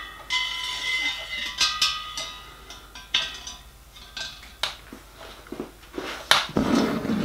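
A copper stay rod clinks and scrapes against a copper model-locomotive boiler as it is fed into a fitting on the boiler's end. The first knocks leave a metallic ring hanging for a couple of seconds. A denser rustle of handling comes near the end.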